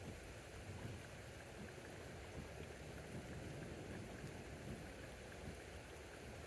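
Rain falling steadily, an even hiss with faint scattered drop ticks.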